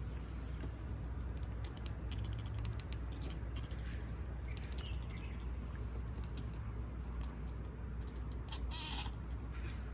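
A cat gives a few short, faint chirping meows, with a louder one near the end, over a steady low hum.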